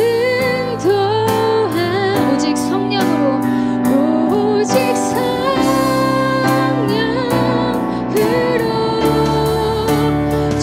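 Live Korean worship song: young female vocalists singing the melody together into microphones over a keyboard and band accompaniment, with held notes and vibrato and a steady low bass.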